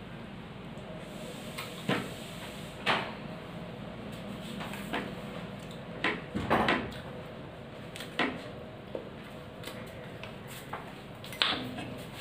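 Meal eaten by hand from a plate: scattered short clicks and knocks, about eight in all, from fingers on the plate and mouth sounds of eating, over a steady faint hum.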